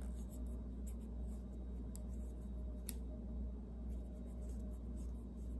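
Fingers rubbing and turning rusty 8mm Mauser cartridges: a faint scratchy handling sound with a light click of metal about three seconds in, over a steady low hum.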